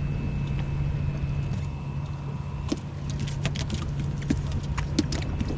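A boat motor running steadily with a low hum and a faint high whine. From about halfway through, scattered sharp clicks and knocks are heard over it.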